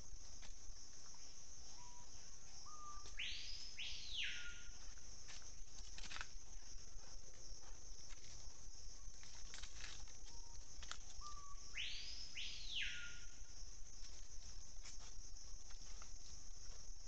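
Steady high-pitched insect chorus in forest, with a bird calling twice about eight seconds apart. Each call is a few short whistled notes stepping up in pitch, then a quick sweep up and back down.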